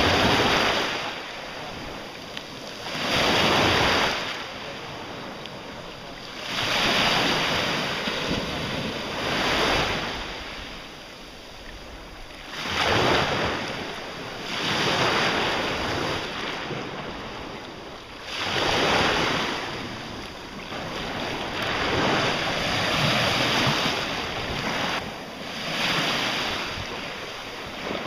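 Small sea waves washing in, swelling and fading every few seconds, with wind on the microphone.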